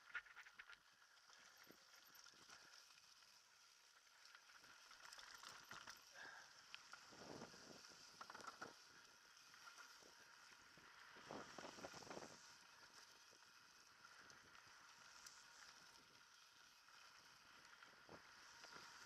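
Faint rolling and rattling of a mountain bike riding down a dirt trail, with a few louder bursts of rattling over rough ground about a third and two-thirds of the way through.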